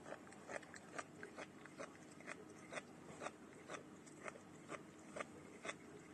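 A cat crunching dry kibble, with faint, regular crunches about twice a second.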